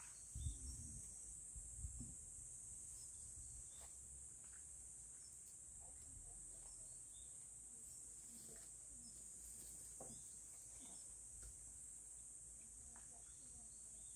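Faint outdoor ambience dominated by a steady, high-pitched insect chorus, with a few soft ticks and rustles.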